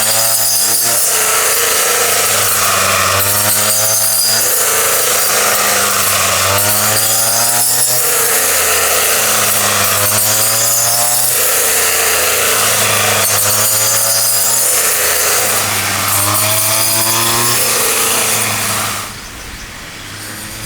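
Small motor-driven rice threshing machine running loudly, its pitch rising and falling in a regular cycle about every three seconds. The sound drops away sharply about a second before the end.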